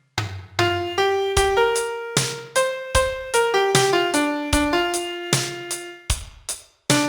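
Piano-sound melody of a pop song's chorus, played one note at a time with low bass notes underneath. It breaks off briefly just after the start and again near the end.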